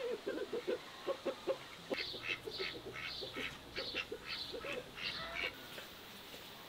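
Birds calling: a string of short, low calls repeated several times a second, joined from about two seconds in by a run of higher, sharper calls that stop a little over five seconds in.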